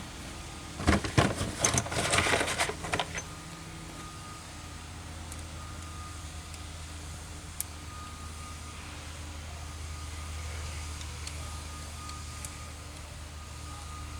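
Small metal parts and a tool clinking and rattling for about two seconds near the start as a bolt is fitted to the injection pump's control rack, then a steady low hum for the rest.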